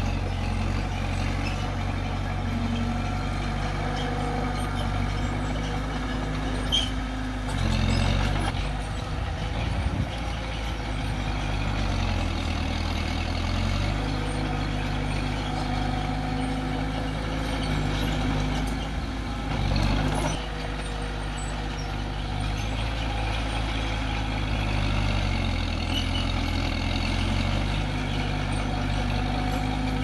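Heavy diesel engine of a bulldozer running as it works, its note stepping down and back up several times, with a few short knocks of metal and rock.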